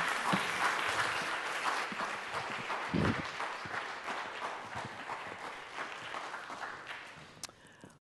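Audience applauding, the clapping dying away gradually until it has almost stopped near the end. A dull low thump sounds about three seconds in.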